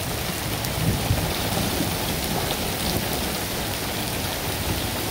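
Hail mixed with heavy rain pelting a wet concrete driveway: a steady dense hiss with scattered small ticks of hailstones.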